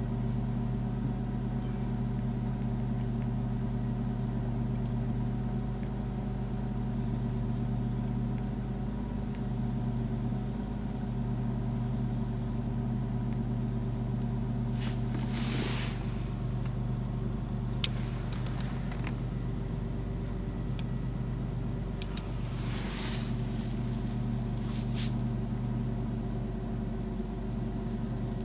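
Car engine idling steadily, with a few brief clicks and rustles.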